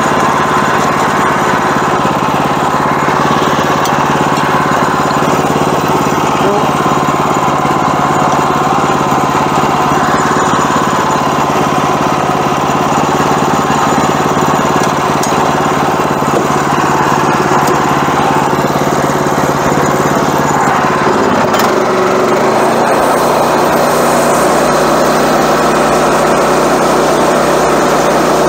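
Gas engine of a Woodland Mills portable bandsaw mill running steadily under throttle. About 22 seconds in, its note changes and settles at a new steady pitch.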